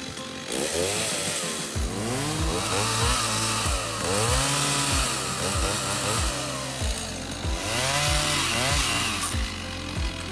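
Stihl MS 290 Farm Boss two-stroke chainsaw revving up and down again and again as it cuts through brush. It starts about half a second in.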